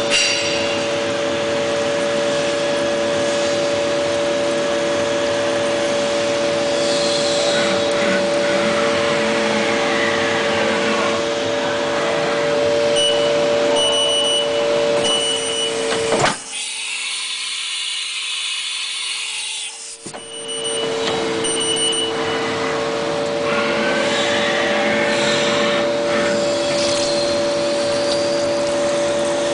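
CNC machine running, with a steady multi-tone spindle whine over a hiss. About two-thirds of the way through, the whine and low end cut out for about four seconds, then the whine resumes.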